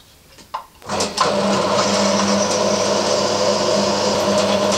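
Drill press motor starting about a second in and then running steadily with a constant hum, while a bolt hole in the lathe tailstock's top part is drilled out to final size.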